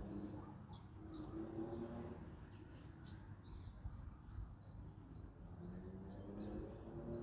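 Small songbirds chirping: a quick run of short, high chirps, several a second, over a low outdoor rumble.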